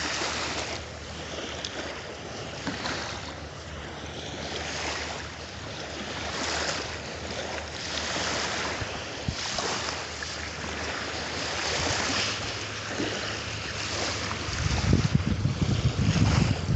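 Ocean surf washing on a beach, a steady hiss that swells and fades every second or two. Near the end, wind buffets the microphone with a heavy low rumble.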